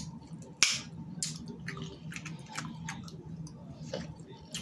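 Someone eating snow crab legs: wet chewing and sucking with irregular sharp cracks and clicks of crab shell, the loudest crack about half a second in.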